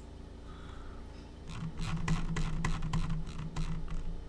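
A quick run of about a dozen irregular clicks from a computer keyboard and mouse, starting about a second and a half in and stopping just before the end, as the code is navigated.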